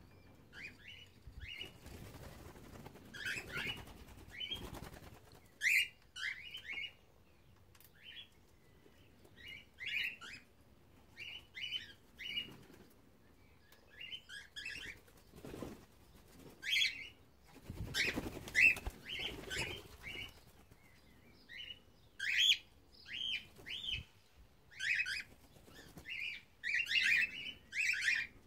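Cockatiels chirping over and over in short clustered calls, with bursts of wing flapping in between.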